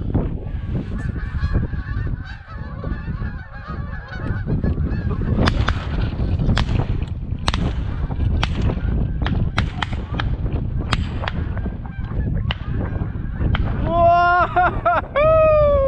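A large flock of geese calling overhead, many overlapping honks at first, with wind buffeting the microphone and scattered sharp clicks in the middle. Near the end come two loud, close honks that arch up and fall in pitch.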